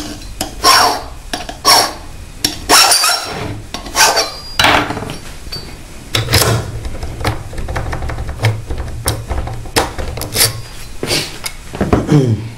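Hand file rasping on a key blank in a string of separate strokes, with a rougher, steadier stretch of filing in the middle. This is the cut being filed down where the lock's pin left a mark at position two during impressioning.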